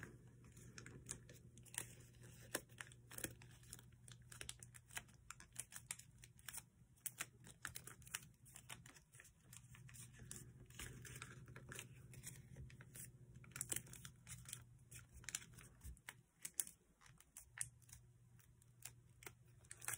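Thin kami origami paper faintly rustling and crinkling as it is folded and creased by hand, a stream of irregular soft crackles and taps.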